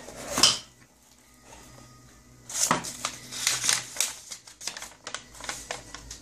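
A folded paper instruction sheet rustling and crackling as it is handled and unfolded: one sharp rustle at the start, then a quiet pause, then a run of crackles from about two and a half seconds in.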